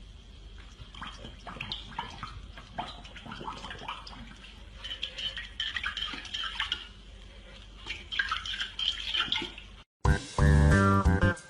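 Water splashing and dripping in irregular small splashes over a steady hiss, cut off about ten seconds in by music with a bass guitar line.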